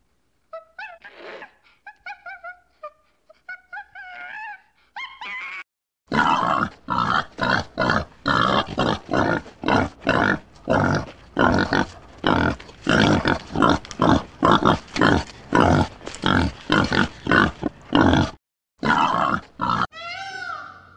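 Monkeys chirping and squeaking in short pitched calls. About six seconds in, a warthog starts grunting loudly and rhythmically, roughly two grunts a second, for about twelve seconds.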